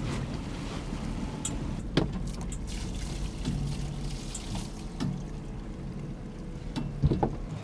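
A boat's outboard motor running slowly, with water splashing around the hull and a few sharp knocks, about 2, 5 and 7 seconds in.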